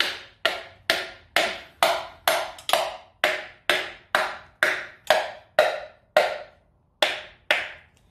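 Steady taps, about two a second, on the piston of a 1939 Graham supercharged engine, driving the connecting rod up onto its crankshaft journal over the newly fitted rod bearing. Each tap rings briefly, and the taps stop near the end.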